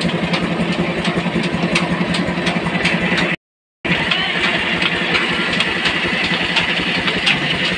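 Belt-driven village flour mill (atta chakki) running steadily as it grinds wheat into flour, with a regular knocking of about three beats a second. The sound cuts out completely for a split second a little before the middle.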